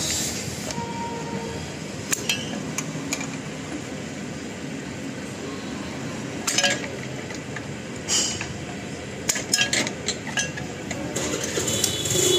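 Electric drill running as its bit bores into a small steel piece held in pliers, with scattered sharp metallic clinks and scrapes of the bit, the workpiece and the pliers.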